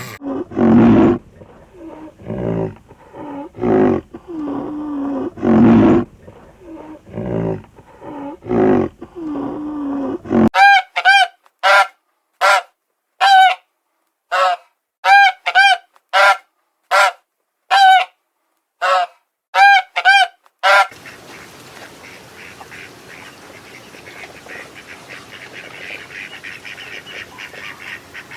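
A string of animal calls: low calls for the first third, then about fifteen separate honking calls, then a steady din of many high calls, as from a flock.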